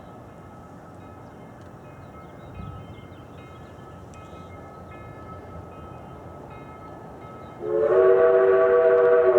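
Southern 4501 steam locomotive's whistle blowing a loud, sustained chord of several tones at once, starting near the end after a stretch of steady low background noise.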